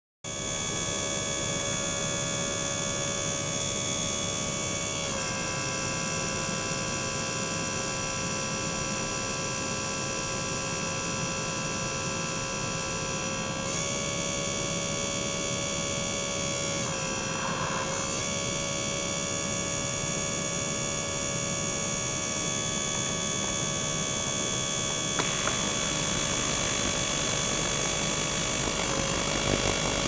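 Small circulation pump and ultrasonic tank running together: a steady electric hum with several steady high tones that shift pitch a few times, around five, fourteen, seventeen and twenty-five seconds in, over the noise of liquid pouring into the tank.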